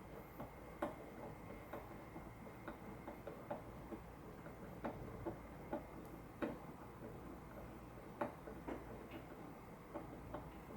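Faint, sharp clicks and taps at an uneven pace, roughly two or three a second, from small hand work on an archtop guitar.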